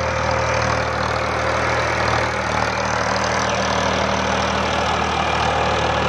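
Indo Farm tractor's diesel engine running steadily and labouring under heavy load. It is dragging a land leveller that, by the narrator's account, it can barely pull and is bogged down by.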